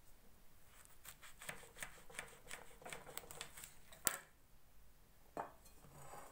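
Knife cutting an orange into quarters: a run of small quick clicks as the blade works through the peel and flesh, then a sharp knock of the blade on the cutting surface about four seconds in and a softer one near the end.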